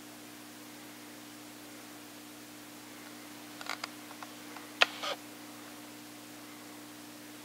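Quiet room tone with a steady low hum, broken a little past the middle by a few short, sharp clicks, the sharpest about five seconds in.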